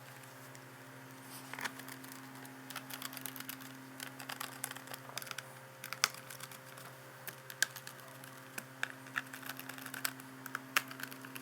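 Precision screwdriver driving the captive bottom-cover screws into a plastic laptop case: scattered small clicks and taps, over a faint steady hum.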